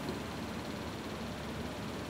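Steady low hum and hiss of workshop background noise, with one faint click just after the start.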